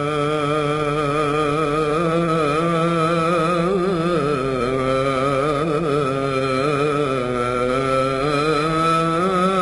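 A male voice sings a long, drawn-out melismatic line of Sufi inshad. The sustained notes waver with vibrato and ornaments, moving in small steps of pitch.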